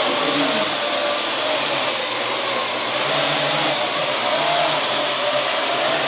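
Parrot AR.Drone quadcopter in flight, its four electric motors and propellers whirring steadily, the pitch wavering up and down as it hovers and manoeuvres.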